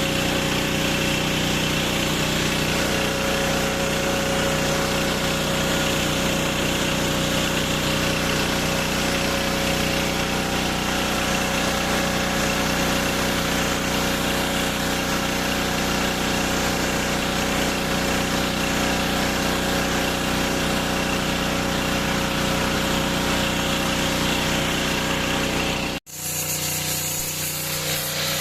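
6 HP gasoline engine of an INGCO GHPW2003 pressure washer running at a steady speed. Near the end it cuts off abruptly and a thinner steady running sound follows.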